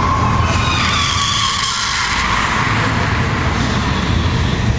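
Car drifting, its tyres squealing loudly through the first couple of seconds over the steady noise of the engine running.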